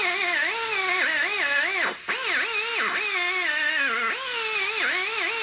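High-speed die grinder cutting into a cast-iron Buick 455 cylinder head, its whine dipping in pitch again and again as the bit bites into the metal and then recovering.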